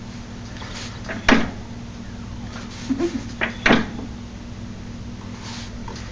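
Knocks and clunks from a vehicle's wheel and drivetrain as it is rocked back and forth by hand, the noise the owner is trying to diagnose and is unsure is normal. Two sharp knocks about two and a half seconds apart, with lighter clicks between them, over a steady low hum.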